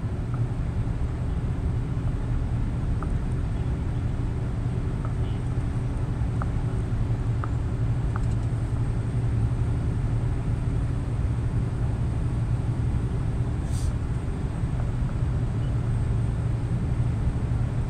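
Scania truck's diesel engine and tyre noise heard from inside the cab while cruising at a steady speed: an even low drone. A few faint ticks and one sharp click come late on.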